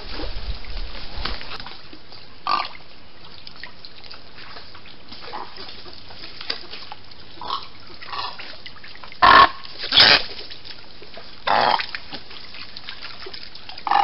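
A flock of white ibises and great egrets giving short, harsh calls, one at a time and a few seconds apart, the loudest about nine to ten seconds in. A low rumble at the very start.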